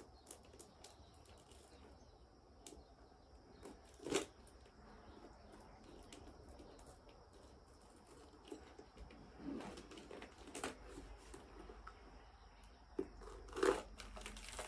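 Knife cutting and prying at the seams of a durian's spiky husk, with scattered small cracks and a sharp crack about four seconds in. Near the end the husk cracks and tears apart as the fruit is pulled open by hand.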